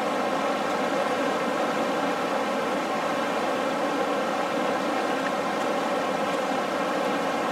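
River rapids rushing over rocks: a steady, unbroken wash of water.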